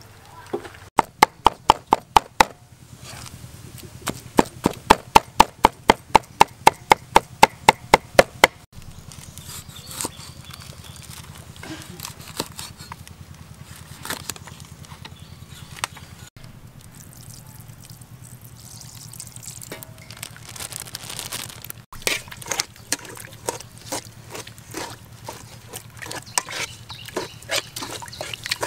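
A knife chopping hard and fast on a wooden board, about five strokes a second, in two runs in the first few seconds. Then a few soft cuts as a knife slices limes on the board. Near the end, a metal spoon stirs a wet mixture in an aluminium pot, with scattered clicks and sloshing.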